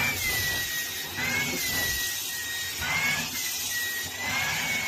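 Vacuum cleaner running steadily: a constant rushing hiss with a high whine that slowly wavers up and down in pitch.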